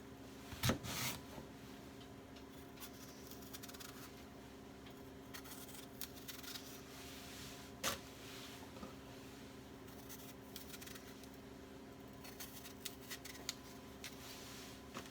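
Quiet kitchen handling sounds: a sharp knock about a second in and another about halfway, with light scraping, rustling and small clicks in between, over a steady low appliance hum.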